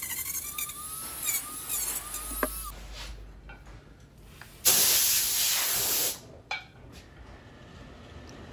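A Dremel rotary tool with a sanding band whines as it grinds down cured epoxy filler on a glazed ceramic platter, then winds down about two and a half seconds in. About four and a half seconds in, a compressed-air nozzle gives a loud blast of air lasting over a second to blow off the sanding dust, followed by a short puff about a second later.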